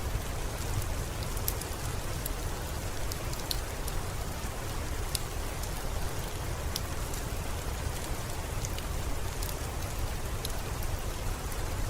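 Steady rain, a continuous hiss over a deep low rumble, with scattered short, sharp ticks of drops throughout.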